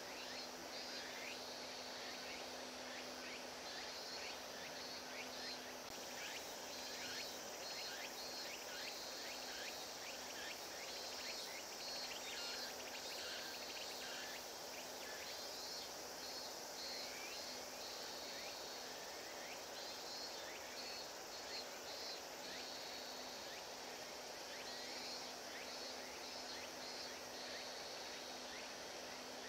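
Outdoor ambience of insects chirping in repeated pulses, over a faint steady low hum.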